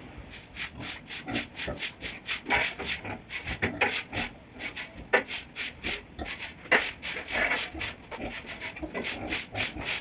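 Stiff broom sweeping a concrete floor in quick, even scratchy strokes, about four a second.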